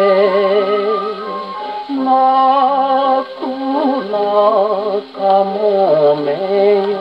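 A 1949 shellac 78 rpm record of a Japanese popular song playing on an HMV 102 wind-up portable gramophone: a man sings with vibrato over accompaniment. The sound through the acoustic soundbox is thin, with no deep bass and no treble.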